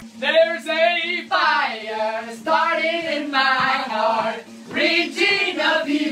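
Unaccompanied singing: a voice holding long, wavering notes in phrases of about a second each, with no beat or instruments and a faint steady tone underneath.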